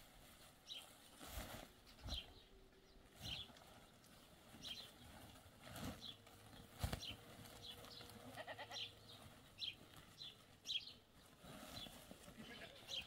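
Faint goat bleating: short, high calls about once a second, with a few sharp knocks between them.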